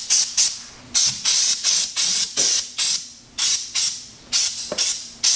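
Aerosol can of Rust Check rust-proofing spray hissing in a rapid series of short bursts, about two to three a second, with brief gaps between.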